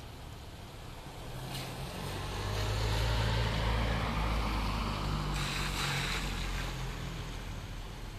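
A passing vehicle over steady rain ambience: a low hum with a hiss swells to a peak about three seconds in, then fades away.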